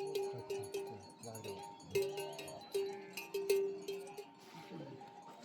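A metal bell clanking over and over at one steady pitch, several strikes a second, stopping about four seconds in.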